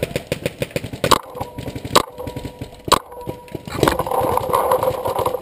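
Paintball gunfire: sharp single cracks about once a second, over a patter of small knocks. A longer scuffling noise comes about four seconds in.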